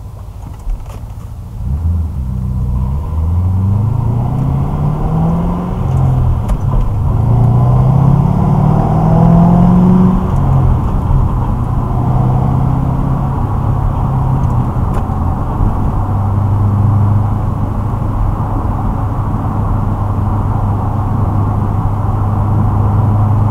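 2006 Ford Mustang GT's 4.6-litre V8, heard from inside the cabin through a Pypes off-road X-pipe and Magnaflow axle-back mufflers. It idles, then pulls away about two seconds in, the revs climbing and dropping back through several gear changes, before settling into a steady low drone at cruising speed.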